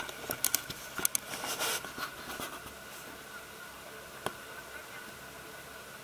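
Boat engine running steadily. A few sharp knocks come in the first two seconds or so, and one more about four seconds in.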